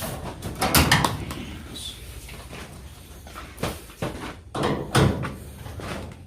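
Knocks and clatter from working on a Speed Queen clothes dryer's sheet-metal cabinet during disassembly, with two louder bangs, about a second in and about five seconds in.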